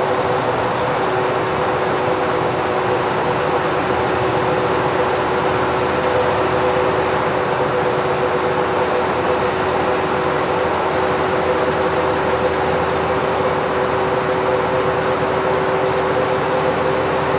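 Mack CH600 truck driving at a steady speed through a highway tunnel: an even engine and road drone with two steady humming tones under it.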